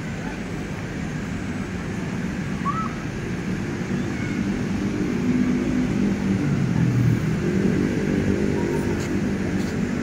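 Steady low rumble of road traffic, with faint indistinct voices of people mixed in, growing a little louder about halfway through.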